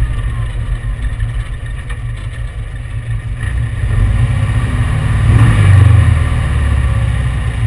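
The 1835 cc air-cooled VW flat-four engine of a sand rail running at low speed and idle, with a steady low rumble that swells louder for a moment about five to six seconds in.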